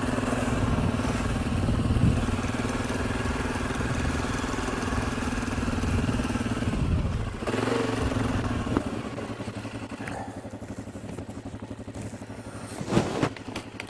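Suzuki KingQuad 750 ATV's single-cylinder engine running steadily while the quad is ridden slowly. The engine gets quieter about ten seconds in, and a couple of sharp knocks come near the end.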